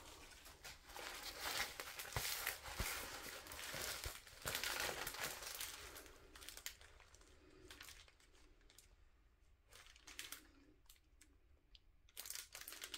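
Packaging crinkling and tearing as a white package with strongly glued seams is pulled open to get at a diamond painting canvas. The rustling is busiest in the first half, thins to scattered faint crackles, then picks up again near the end.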